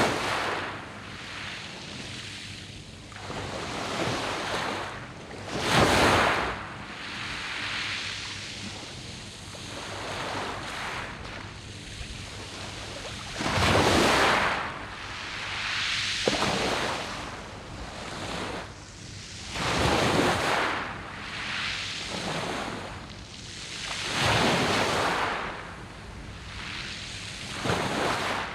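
Sea waves breaking on a pebble beach, one surge of surf every few seconds, each swelling and then washing back.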